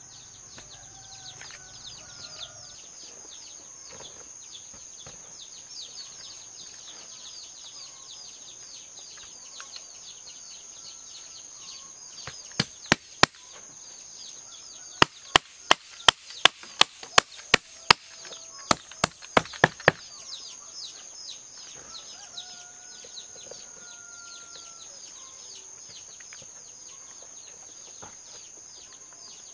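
Sharp chopping strikes with a blade: two about twelve seconds in, then a quick run of a dozen or so at about two to three a second. A steady high-pitched hum runs underneath.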